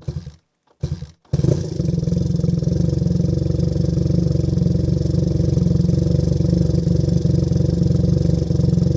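Motorcycle engine: two short bursts, then about a second and a half in it catches and runs steadily at an even, unchanging speed, with a deep pulsing exhaust note.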